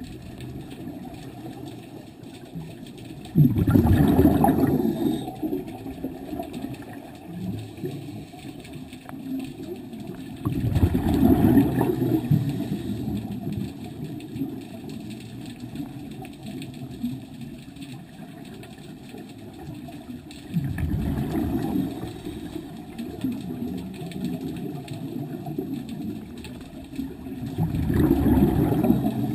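Scuba diver's breathing heard underwater through a GoPro housing: four loud bubbling exhalations from the regulator, about seven seconds apart, over a steady low underwater rumble.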